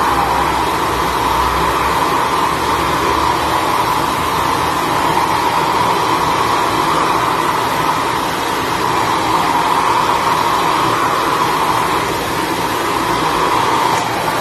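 Handheld electric hair dryer running steadily, blowing a continuous rush of air over a long-haired cat's fur to dry it after a bath.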